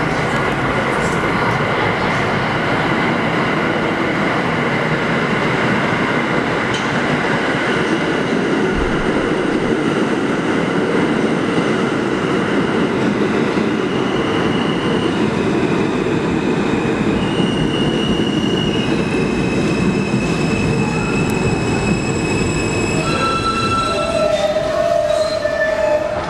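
Subway train of R160 cars running into the station along the platform, with a continuous rumble of wheels on rail. In the second half, high-pitched squeals and whines come and go as it brakes, and it stops near the end.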